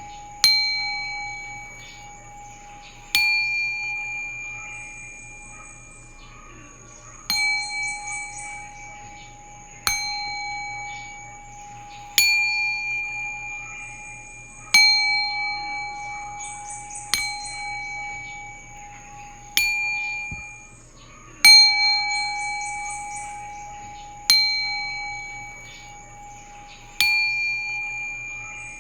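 Singing bowls struck one after another, about every two and a half seconds, eleven strikes in all. Each strike rings out with several clear overtones and fades slowly, while one low tone keeps sounding underneath.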